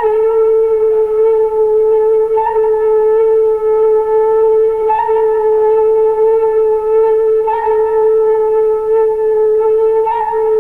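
One long sustained musical note on an instrument, held at a single steady pitch with no break. It swells slightly about every two and a half seconds.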